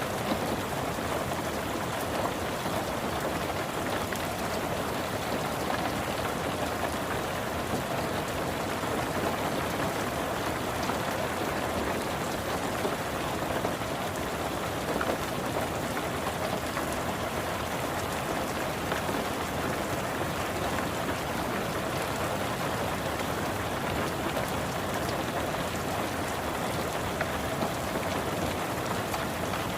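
Steady rain falling on a car's roof, heard from inside the car: an even hiss dotted with the ticks of single drops.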